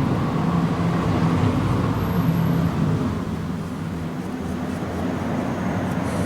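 A steady low mechanical drone with a few low tones, holding level throughout.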